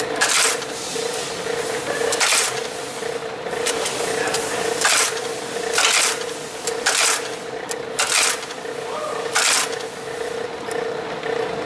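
Graphotype embossing machine running with a steady motor hum while its die punches letters one after another into a metal address plate, each a sharp clack, about one a second at irregular intervals.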